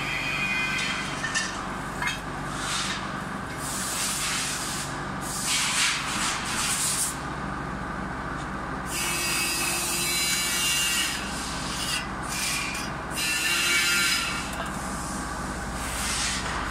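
Gritty scraping and rustling of foundry moulding sand being scooped and worked by hand over the mould boxes, coming in irregular surges a second or two long, over a steady low hum.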